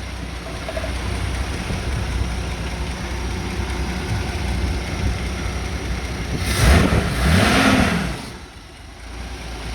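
Ford Granada 2.8 V6 engine idling steadily on its first run after an oil change. About two-thirds of the way through, a louder engine sound rises and falls in pitch for about a second and a half before settling back.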